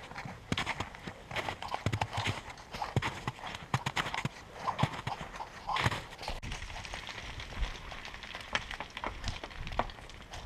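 Hikers' boots stepping down through snow, an uneven run of footsteps, busiest in the first half and sparser after about six seconds.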